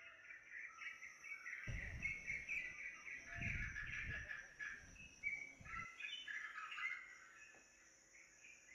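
Birds chirping and calling in a dense, continuous chatter of quick high notes. A low rumble sits under it from about two seconds in until about six seconds.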